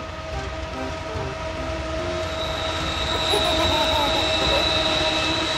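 Freight train hauled by diesel locomotives approaching and passing. A continuous low rumble carries several steady tones and grows louder over the first few seconds.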